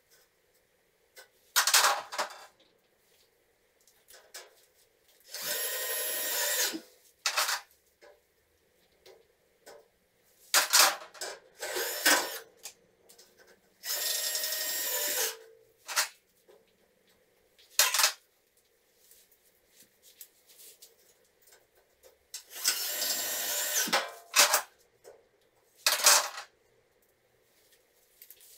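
Power drill driving screws into steel drywall framing in three short runs of about a second and a half, with sharp metallic clicks and clanks in between.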